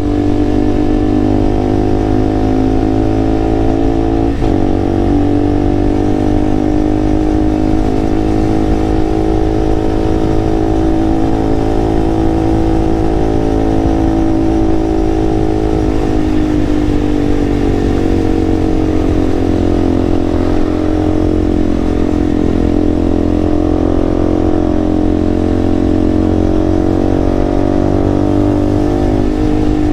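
Single-cylinder KTM motorcycle engine running at a steady cruise while riding, its pitch easing off a little about halfway through and picking up again. A steady low wind rumble on the microphone lies under it.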